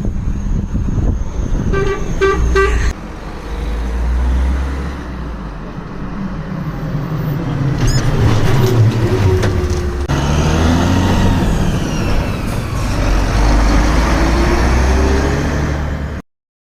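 Mercedes truck horn giving a quick run of about four short toots, followed by the low rumble of heavy truck engines and road traffic, with a truck driving past in the second half. The sound cuts off just before the end.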